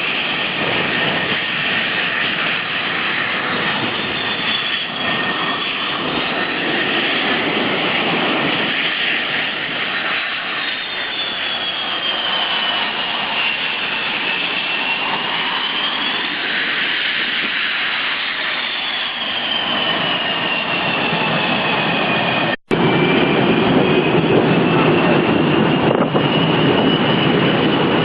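F-14 Tomcat jet engines running loud, with a whining tone over the rush that slides slowly up and down. The sound drops out for an instant about 22 seconds in and comes back louder.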